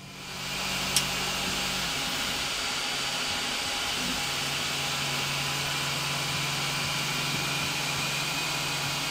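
Modix Big 60 V3 large-format 3D printer running mid-print: a steady hum from its cooling fans and motors, coming up over the first half second, with a single sharp click about a second in.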